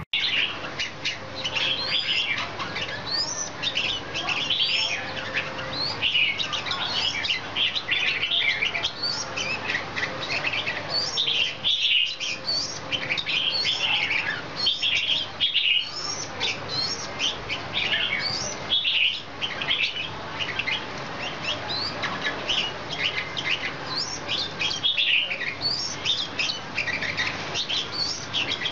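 Red-whiskered bulbul song: a dense, continuous run of short chirping and whistled notes, with a few brief pauses. It is the chatter of males in their wing-spreading display.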